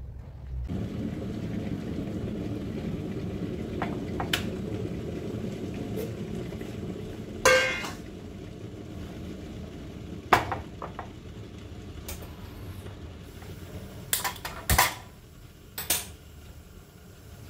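Steel kitchen utensils, plates and a bowl clinking and knocking as they are handled on a stovetop counter, with a handful of sharp clinks and one short rattle. A steady low hum runs underneath.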